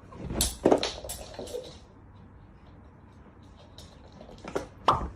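A burst of knocks and rattles in the first two seconds, then two sharp knocks near the end, like something bumping or a door or cupboard being moved.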